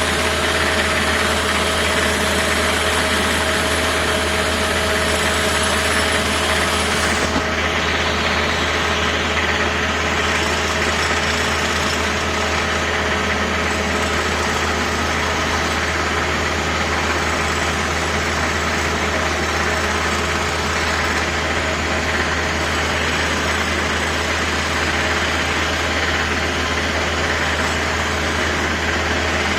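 Construction machinery engine running steadily: a constant low hum under a dense mechanical din, with a couple of steady tones and no breaks.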